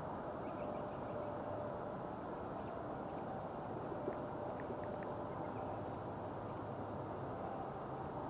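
Steady, faint outdoor background hiss, with a few faint short high chirps and a single soft tap about four seconds in.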